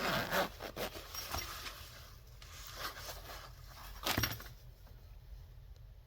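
Rustling and scraping of packaging being handled as a knife is unboxed, with a few light clicks early on and one louder scrape about four seconds in, then only faint handling.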